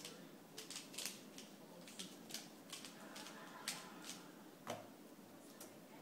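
Dayan ZhanChi 3x3 speed cube being turned by hand, its plastic layers clicking in quick, irregular turns as it is scrambled, with a couple of louder clacks partway through.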